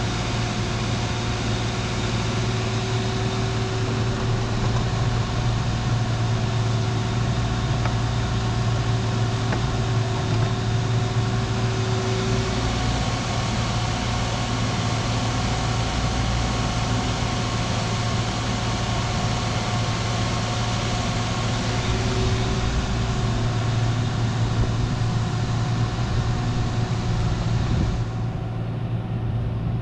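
Diesel engine of a compact construction machine running steadily, warming up. A higher steady tone sits over the drone part of the time.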